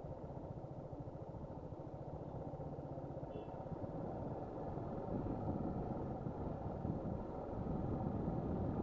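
Suzuki Gixxer SF 155 motorcycle's single-cylinder engine running steadily as the bike is ridden, getting a little louder in the second half.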